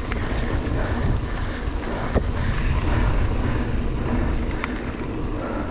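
Mountain bike rolling along a dirt singletrack: steady tyre noise and wind on the camera microphone, broken by a few sharp knocks and rattles from the bike over bumps, the strongest about two seconds in.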